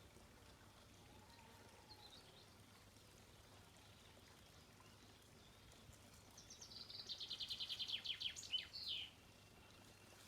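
A small songbird sings one rapid, high-pitched trill lasting about three seconds, starting about six seconds in and ending with a few quick falling notes, over faint outdoor background.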